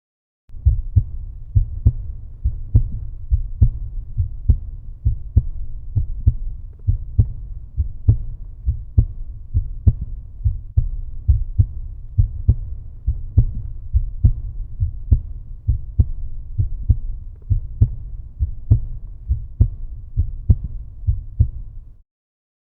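Heartbeat sound: a steady lub-dub of deep, muffled double thumps, a little over one beat a second. It starts about half a second in and stops abruptly near the end.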